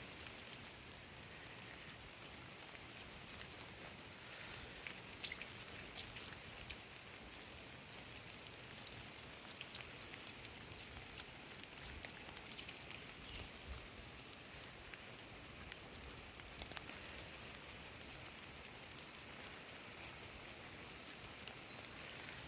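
Quiet outdoor field ambience: a faint steady hiss with scattered light ticks and taps.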